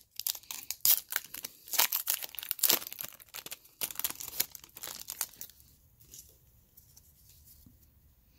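Foil wrapper of a football trading-card pack being torn open and crinkled by hand: a rapid run of sharp crackles for about five and a half seconds, then only a few faint rustles as the cards are handled.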